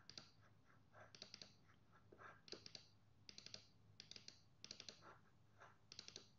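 Faint clicking of a computer mouse, in quick clusters of two to four clicks, one cluster every half second to a second.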